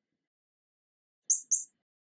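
A quick pair of short, high-pitched bird-like chirps about a second and a quarter in.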